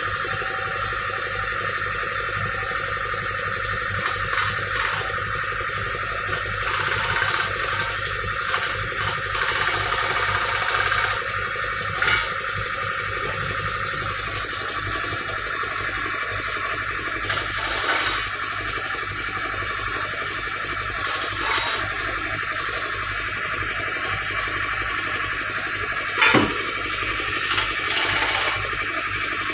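Water splashing onto a concrete floor in repeated pours as a man washes himself, over a steady low machine hum.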